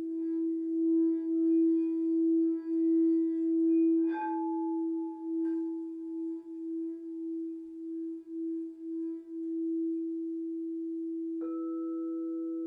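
Quartz crystal singing bowls sounding: a low bowl holds a steady tone that pulses in loudness, while short strikes about four and five seconds in add higher notes. Another bowl is struck about eleven seconds in and rings on.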